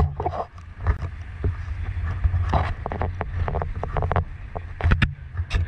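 Dive boat's engine running steadily under way, a low hum, with wind noise on the microphone and scattered short knocks.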